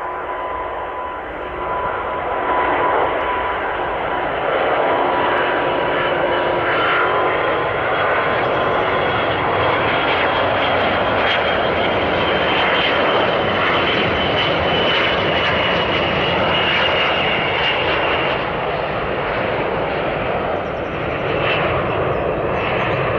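Airbus A350 taking off on one engine, its Rolls-Royce Trent XWB turbofan running at takeoff power: a loud, steady jet rush that builds about three seconds in, with a high whine over it. The other engine is shut down to simulate an engine failure.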